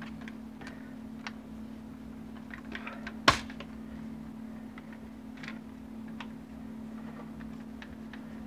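Magpul MOE SL polymer carbine stock being handled and worked onto a rifle's buffer tube: scattered light plastic clicks, and one loud sharp knock a little over three seconds in.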